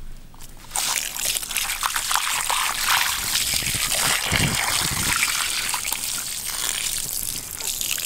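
A stream of water pouring and splashing into a plucked, gutted chicken's body cavity as it is rinsed by hand, starting just under a second in, with a dull low bump about halfway through.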